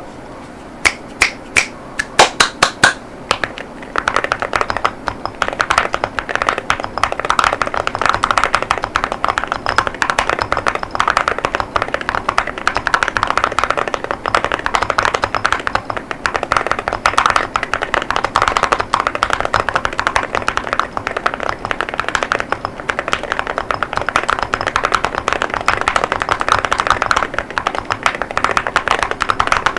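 Mechanical keyboard with Akko Rosewood 40 gf linear switches and ceramic keycaps: a handful of separate sharp keystrokes, then continuous fast typing from about four seconds in.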